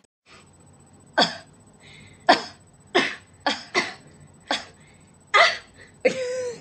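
About eight short, sharp vocal bursts from young women, irregularly spaced over several seconds, each one quickly falling away.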